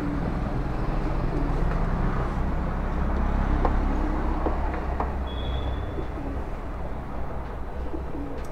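Steady low street background hum with birds calling, and a few light clicks as a screwdriver works on the motorcycle's plastic cockpit parts.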